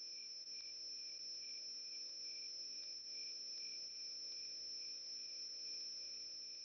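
Crickets trilling: one steady, high, unbroken tone with a fainter pulsing line beneath it and a faint low wavering underneath, likely an added night-time sound effect.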